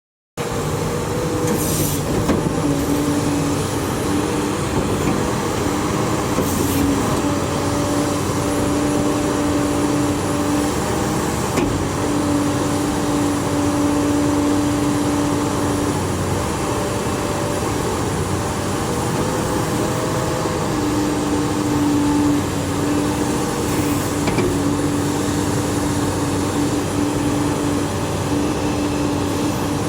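XCMG XE370CA hydraulic excavator running steadily, engine and hydraulics, with a pitched whine that sets in and drops out several times.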